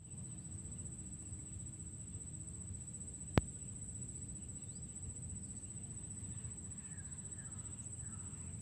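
Outdoor ambience: a steady high-pitched insect whine over a low rumble of wind or handling noise, with one sharp click about three and a half seconds in.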